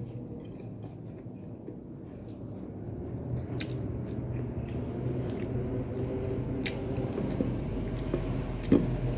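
A person chewing food close to the microphone: wet, squishy mouth sounds with scattered small clicks, growing louder after about three seconds, with a sharper click near the end.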